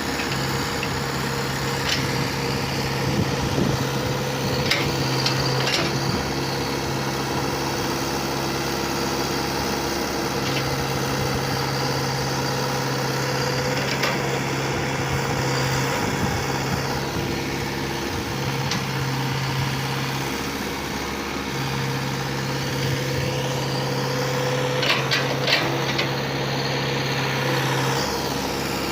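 Diesel engine of a construction machine running steadily, with a few short clanks.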